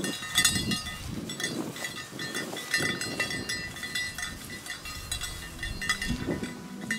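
A small bell jingling irregularly, with ringing high notes and light clinks, over rustling through vegetation.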